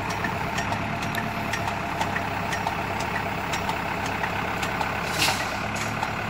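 JCB 3D backhoe loader's diesel engine running steadily while its hydraulics lift the machine on the stabiliser legs, with scattered light clicks and a short hiss about five seconds in.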